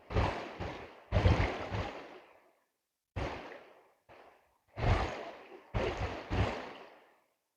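Water sloshing and splashing in a gold pan being worked in a stream: about eight separate surges, each starting sharply and dying away over about a second.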